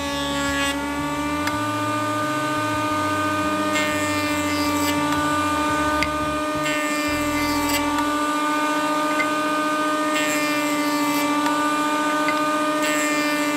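Benchtop jointer running with a steady motor whine. The cutterhead rasps more loudly several times as wooden cutting-board strips are fed through it.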